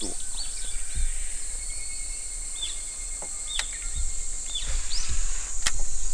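Outdoor ambience of a steady high-pitched insect drone, with a bird repeatedly giving short arched chirps about once a second. Underneath is a low rumble, and there is one sharp click near the end.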